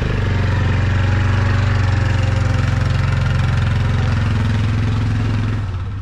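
ATV engine running steadily while the ATV skids a large log across the dirt yard; the sound fades out near the end.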